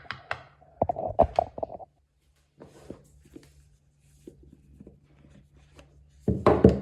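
Plastic fidget toys being handled: a quick run of clicks and pops about a second in, faint scattered taps, then a louder dense clatter of clicks near the end.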